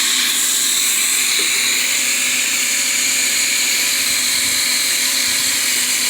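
A small motor running steadily with a constant whine. It had spun up just before.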